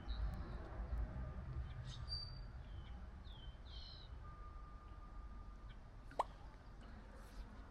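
Riverside ambience: a low steady rumble with small birds chirping on and off, and one sharp water plop about six seconds in.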